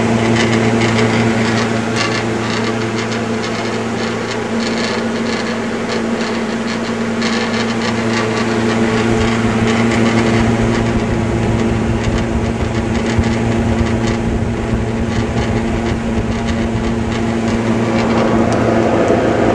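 Mathes cooler fan running on its new Universal electric motor: a steady low hum over the even rush of the spinning blade. There is a little vibration, which the owner puts down to a loose auto-transformer mounting.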